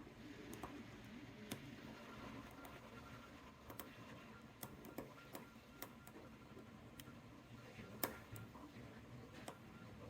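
Faint, irregular small clicks and scrapes of a lock pick and tension wrench working the pins of a 4-pin Brava 30mm brass padlock, with a slightly louder click about eight seconds in.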